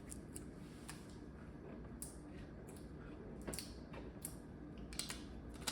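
Faint handling noises: a few scattered light clicks and taps of plastic parts being handled, over a low steady room hum.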